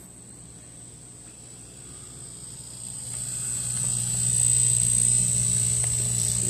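Steady electric hum with a thin high-pitched whine over it from aquarium filtration equipment, growing louder from about halfway through.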